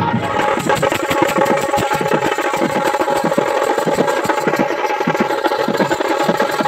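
Rapid, continuous drumming on barrel drums (dhak), the strokes coming fast and close together.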